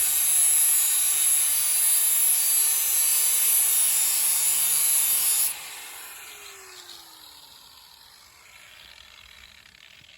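DeWalt electric sander running as a machete blade is sanded against it, a steady grinding hiss. About halfway through it is switched off, and the motor whines down in pitch as it coasts to a stop.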